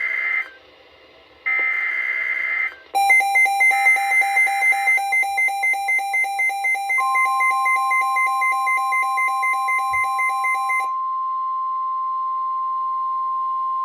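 NOAA Weather Radio emergency alert header: short screechy digital data bursts, the SAME code that opens a warning broadcast, sounding three times. About three seconds in, a receiver's alarm starts beeping, about three beeps a second, and stops a little before the end. About seven seconds in, the steady single-pitch Weather Radio warning alarm tone begins and holds, signalling that a warning message follows.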